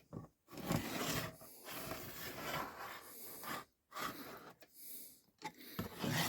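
A marking tip scratching across a board as it is swung in a circle around the aluminium miter saw protractor, which is pivoted on a screwdriver. A rasping scratch in one long stroke of about three seconds, then several shorter strokes with brief pauses.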